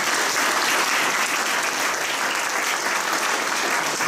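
Audience applauding, a dense, steady sound of many hands clapping.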